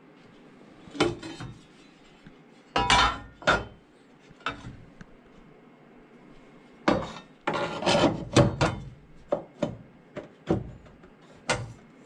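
Irregular knocks and clanks of a 2 mm steel patch panel being fitted by hand into a van's rust-repaired floor corner: about ten separate metallic impacts, most closely bunched about seven to nine seconds in.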